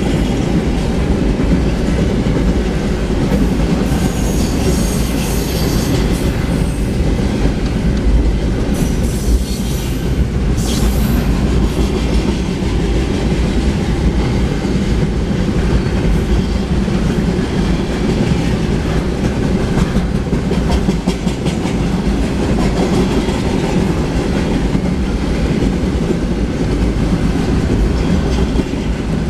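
Double-stack intermodal container cars rolling past on steel rails: a steady loud rumble with the clickety-clack of wheels over the rail joints. High squealing from the wheels rises briefly a few seconds in and again around ten seconds.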